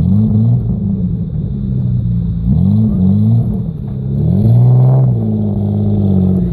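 Off-road 4x4's engine revving up and down in several bursts as the vehicle climbs a rutted snowy track under load. The longest and highest rev comes a little past the middle, then drops back to a lower, steady pull.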